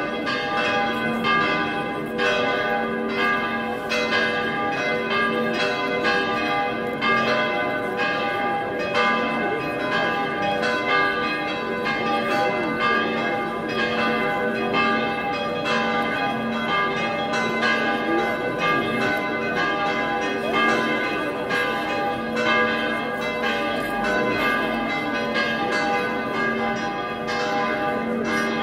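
Church bells ringing in the bell tower, several bells struck over and over in a continuous peal, with new strikes about twice a second over the ringing of the earlier ones.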